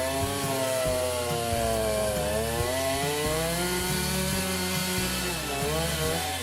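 Chainsaw engine running at high revs while cutting wood, its pitch sagging twice as the chain loads up in the cut and then picking up again.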